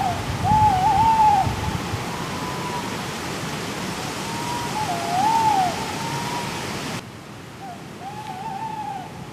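Tawny owls hooting: several long, wavering, quavering hoots, some seeming to answer one another, over a steady hiss. There is a low rumble in the first couple of seconds, and the hiss drops sharply about seven seconds in.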